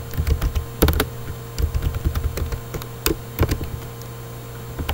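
Computer keyboard being typed on: irregular clusters of key clicks that thin out in the last second or so.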